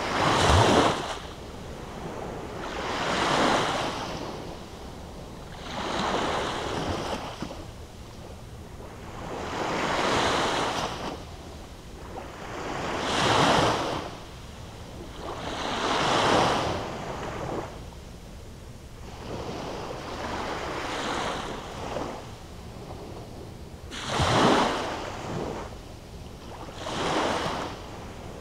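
Small sea waves breaking and washing up a sandy beach, one swell of rushing surf about every three seconds, about nine in all, each rising and fading back.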